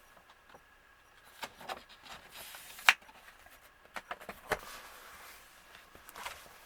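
Handling noise as a vinyl record, its inner sleeve and the lyric insert are put back into the cardboard album jacket: scattered sharp taps and clicks, a short sliding rustle, and a low thump about four and a half seconds in.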